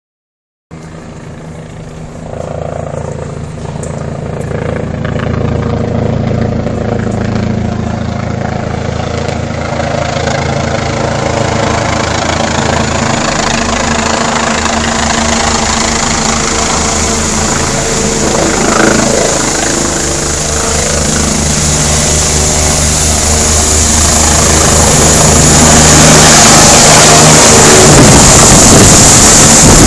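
Eurocopter EC145 helicopter approaching and landing, its turbine and rotor growing steadily louder with an even rotor beat. Near the end the rotor wash adds a heavy rushing noise over the engine.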